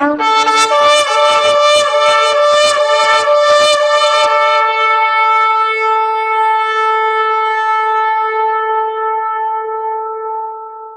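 Shofar blown in one long blast: a brief low note leaps up to the main pitch, rough and pulsing for the first four seconds, then held steady and slowly tapering off near the end.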